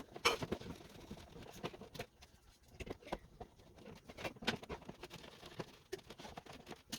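Scattered faint clicks and taps of a wall dimmer switch and its wires being handled and pushed back into the electrical box, the loudest click just after the start.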